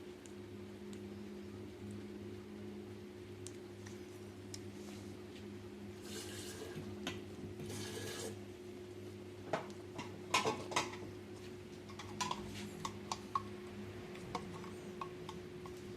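Light clicks and clinks of small hard objects being handled, most of them clustered about ten to thirteen seconds in, over a steady low hum; two brief hisses come about six and seven and a half seconds in.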